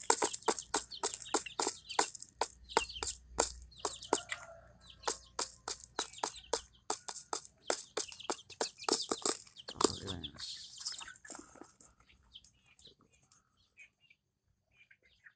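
Chickens pecking up scattered rice grains: a rapid run of sharp taps, several a second, with a few soft clucks. The pecking thins out and dies away about twelve seconds in.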